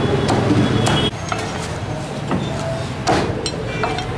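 Meat cleaver chopping roast duck on a thick wooden chopping block: about five sharp chops at uneven intervals, over steady background noise.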